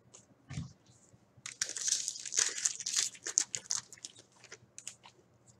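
Crinkling and tearing of a trading-card pack wrapper as it is handled and opened, a dense run of crackles starting about a second and a half in and lasting about two seconds, with lighter scattered clicks around it. A soft thump about half a second in.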